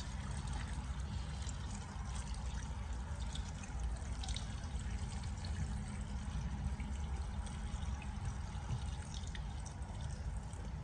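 Water poured steadily into a cooking pot of neem leaves, ginger, garlic and lime, with a steady low hum underneath.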